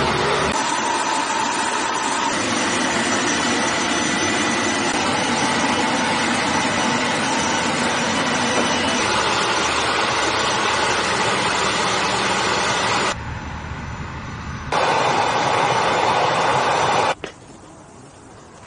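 Iskander-M missile launcher vehicle running, a loud steady mechanical noise with faint high whines, while its erector arm raises the missile. The noise dips briefly about 13 seconds in and stops abruptly near the end, leaving a much quieter background.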